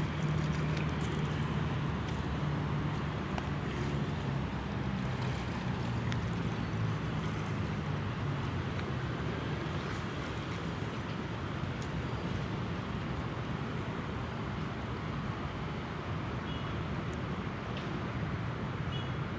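A motor's low engine hum, strongest at first and fading away over the first several seconds, over a steady rushing background noise.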